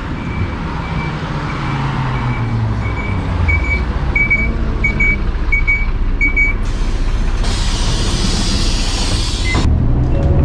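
Route bus's diesel engine running, with short repeated beeps about one and a half a second that grow louder and stop, then about three seconds of air hiss from the bus's pneumatics that cuts off sharply.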